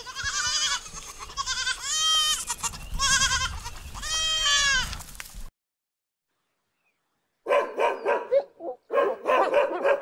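Goats bleating: several loud, wavering bleats one after another, then a short silence. About two-thirds of the way in, a dog starts giving short bursts of barks or yelps.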